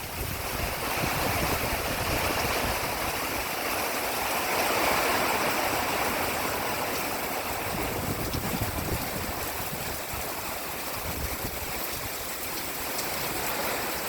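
Hard rain pouring down steadily in a strong wind.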